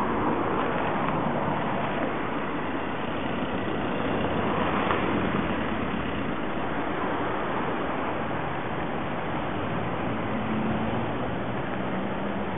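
Road traffic at a junction: a steady rush of car engines and tyres on asphalt, swelling a little as a car passes about five seconds in.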